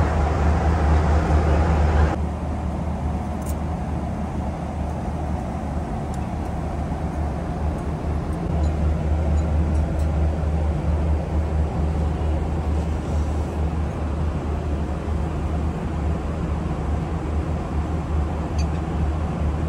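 Steady rumble of a moving vehicle. About two seconds in it cuts abruptly from a louder, fuller noise to a quieter low rumble, with a few faint clicks.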